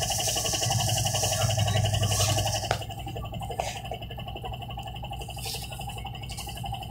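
Cabin noise of a NefAZ 5299 compressed-natural-gas city bus: a steady low running rumble that drops sharply about two-thirds of a second before the three-second mark and continues more quietly. A thin, steady high whine runs throughout.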